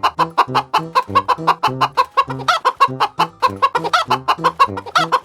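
Chicken clucking in quick short calls, about five or six a second, over background music.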